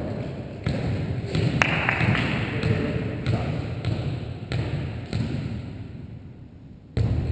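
Sharp thuds of a volleyball being struck and bouncing on a hardwood gym floor, several at uneven spacing, with the last one near the end the loudest, all echoing in the large hall. Faint player chatter runs underneath.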